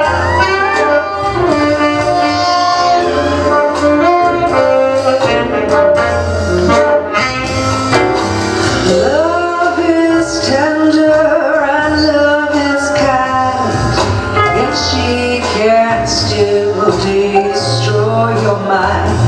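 A song playing: a singer's voice over instrumental backing with a bass line.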